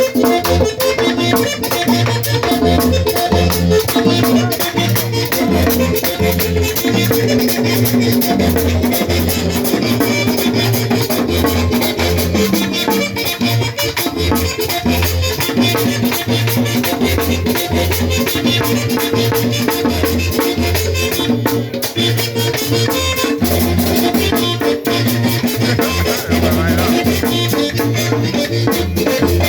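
Merengue típico band playing an instrumental passage: a fast, steady metal scraping of the güira over a regular pulsing drum and bass beat, with sustained accordion-like melody lines.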